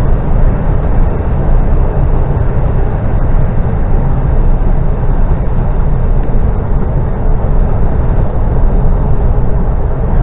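Steady deep engine and road rumble inside a lorry's cab on the move.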